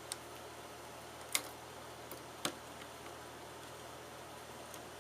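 A few light, sharp clicks, four in the first two and a half seconds, of small metal parts being handled as spring screws are fitted to fasten a CPU heat sink to the motherboard. A faint steady hum runs underneath.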